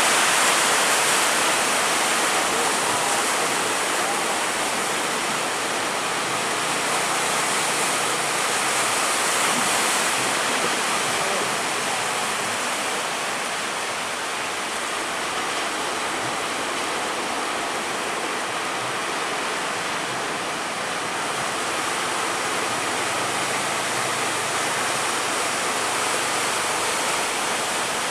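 Steady rushing noise of big sea waves and wind, heard from aboard a motor ship rolling in rough water.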